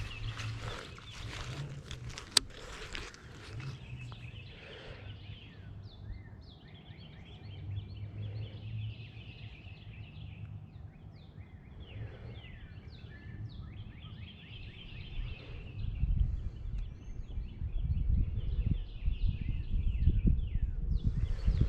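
Many small birds chirping and calling, a steady chatter of short, quick down-slurred notes. A low rumble on the microphone grows louder over the last several seconds.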